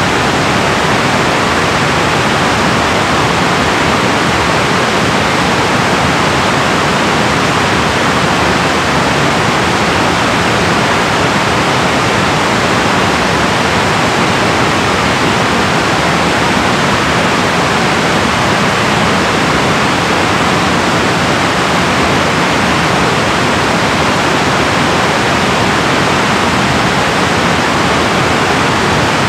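Water pouring through the Joseph-Samson dam on the Saint-Charles River: a loud, steady rush with no change.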